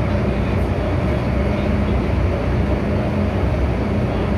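MTR M-Train running, heard from inside the car: a steady rumble of wheels on rail with a low hum underneath.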